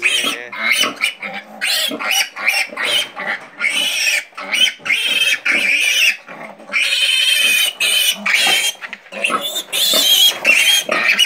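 Young piglets squealing repeatedly in short high-pitched cries, with one longer squeal about seven seconds in, as they are picked up and handled.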